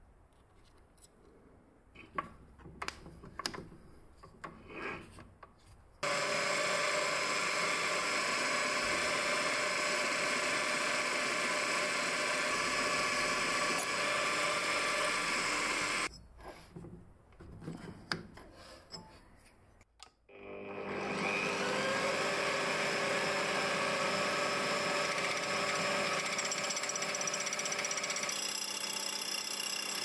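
Electric drill in a drill stand running steadily for about ten seconds, then stopping; after a few clicks of handling it spins up again with a rising whine, now carrying a thin cutting disc on a mandrel, and runs steadily to the end.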